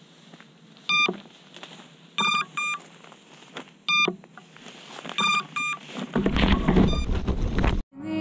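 Racerstar BR2205 brushless motors beeping under BLHeli_S ESC control: the lost-model inactivity beacon, short high beeps coming alternately single and in pairs, about one group every 1.3 seconds. From about six seconds in, loud rustling and handling noise as the quad is pulled out of tall grass.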